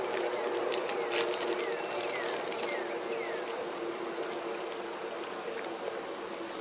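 A steady engine hum runs throughout. Over the first few seconds it carries a few faint, short falling whistles.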